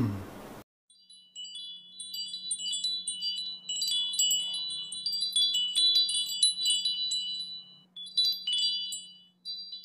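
Chimes tinkling: many high, overlapping ringing notes that start about a second in, over a faint steady low hum.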